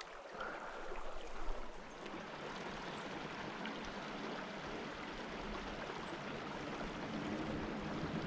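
Water of a tiny trout creek running steadily, a continuous hiss of flow.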